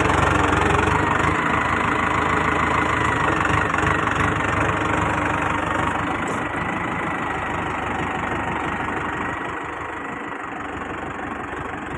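Tractor engine running steadily, growing fainter over the last few seconds.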